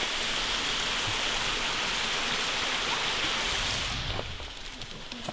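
Rushing water of a waterfall, a steady hiss that drops away abruptly about four seconds in.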